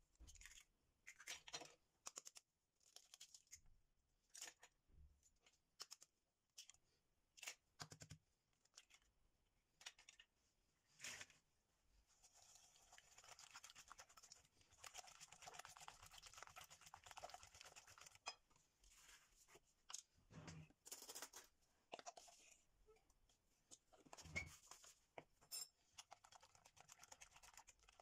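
Faint, separate sharp taps and cracks as eggs are broken on a glass bowl. Then, from about halfway, a silicone-coated wire whisk beats eggs and sugar fast in the glass bowl, making a quick, continuous scratching that stops and starts briefly a few times.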